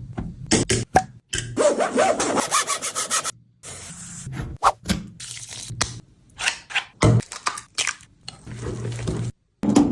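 Kitchen sounds of sponge cake batter being prepared in a bowl, heard as short clips broken by abrupt cuts to silence.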